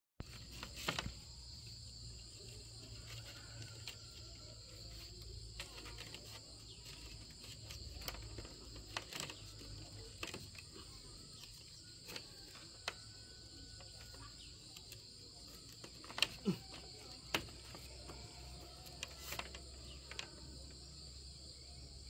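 A steady high-pitched chorus of insects, typical of crickets, with scattered light knocks and taps at irregular intervals. The loudest knocks come about sixteen and seventeen seconds in.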